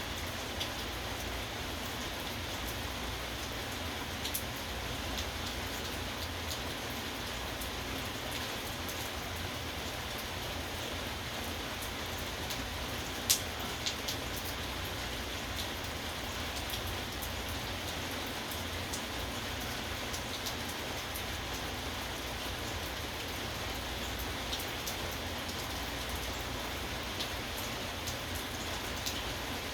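Steady rain falling and pattering on a surface, with scattered louder drips.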